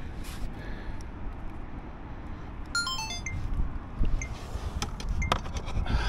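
Handling noise on a fishing kayak: scattered knocks and clinks as a smallmouth bass is lifted out of a landing net onto the deck, over a steady low wind rumble on the microphone. A short run of falling high notes sounds about halfway through.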